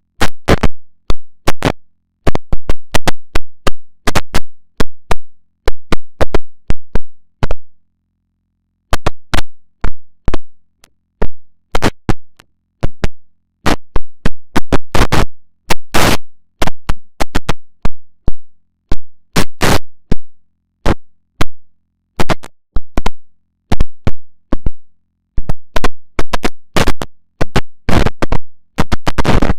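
Heavily distorted, effect-laden audio edit: short, loud, clipped bursts that each start sharply and fade, repeating in a fast irregular stutter, with brief breaks about 2 seconds and 8 seconds in.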